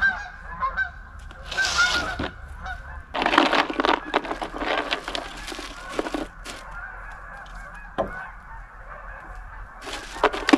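Geese honking, short repeated calls, with a few louder bursts of rustling noise about two and four seconds in.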